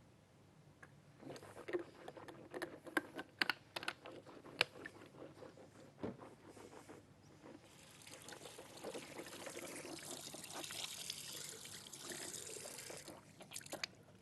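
A run of light clattering knocks, then a steady rush of running water for about five seconds that stops shortly before the end.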